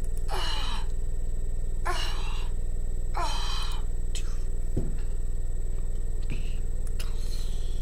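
Steady low electrical hum, with a child's short breathy gasps three times about half a second, two seconds and three seconds in, each falling in pitch, and fainter breaths later.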